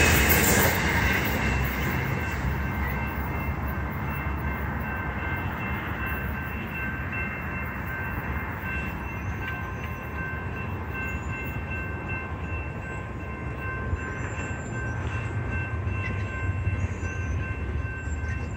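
Coaster commuter train rushing past close by, its noise fading within the first couple of seconds as it pulls away and leaving a low rumble. A grade-crossing warning bell keeps ringing steadily in the distance.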